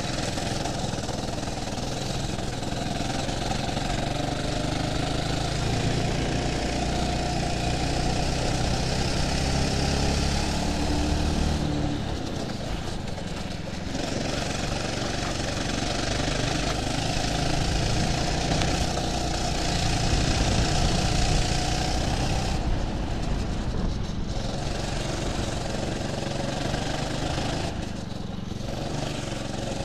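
Go-kart engine heard onboard, running under throttle. Its note climbs along the straights and drops off briefly about twelve, twenty-three and twenty-eight seconds in as the driver eases off, over a steady rushing noise.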